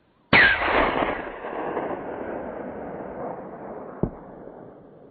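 A single 7mm-08 rifle shot cracks out, its echo rolling away and fading over about four seconds, with a second short thump near the end. This is the shot that hits the young stag in the heart and lungs.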